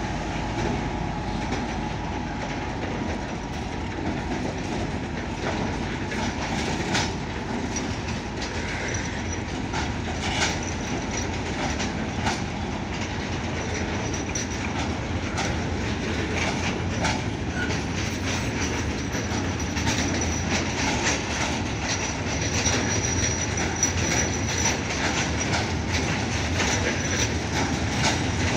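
Freight train of tank wagons rolling past behind a diesel locomotive: a steady rumble with wheels clacking over rail joints. In the second half a thin, high wheel squeal comes and goes.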